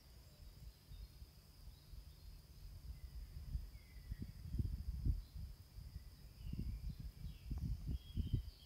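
Strong southerly foehn wind buffeting the microphone in uneven low gusts, strongest about halfway through and again near the end. Behind it runs a faint steady high insect trill, with a few faint bird chirps.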